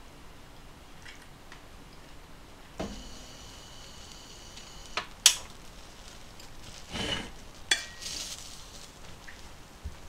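Metal kitchenware clattering: a knock that rings for about two seconds and then cuts off, followed by a few sharp clinks and scrapes as a plastic rice paddle stirs cooked rice in a metal rice pot.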